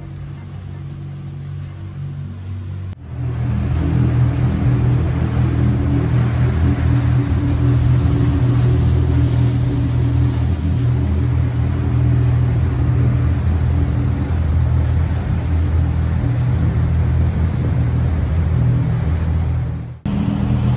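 Bayliner 3587 motor yacht's engines droning steadily under way. About three seconds in it jumps louder, with the rush of wind and water added over the engine drone.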